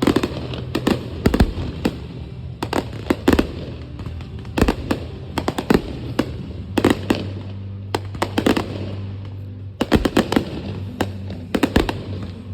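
Fireworks going off: a loud, irregular series of sharp bangs, many coming in quick clusters of two or three, over a steady low rumble.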